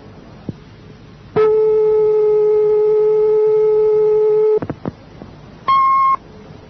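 Answering machine tones between messages on the tape: a click, then a long steady lower-pitched tone of about three seconds that ends with a few clicks, and a short high beep near the end.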